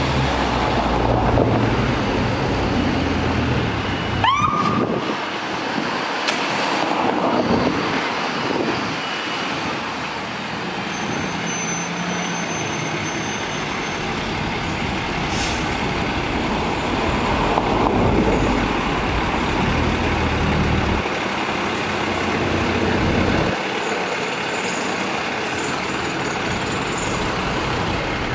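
Fire engine's diesel engine running and pulling away, its pitch rising and falling with the throttle, with air brakes. A short rising siren whoop about four seconds in.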